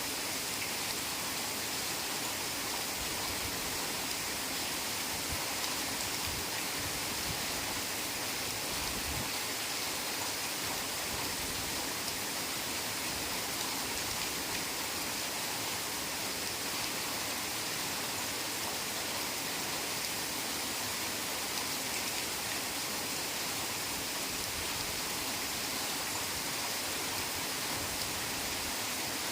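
Heavy rain falling steadily, an even hiss of downpour that does not let up.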